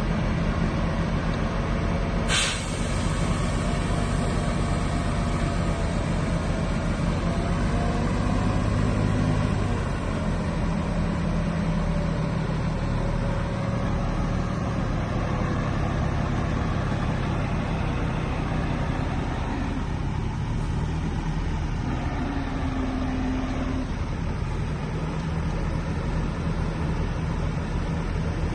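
Heavy diesel engines of a Shantui bulldozer and dump trucks running steadily, the engine note dropping slightly about ten seconds in. A single sharp click about two seconds in.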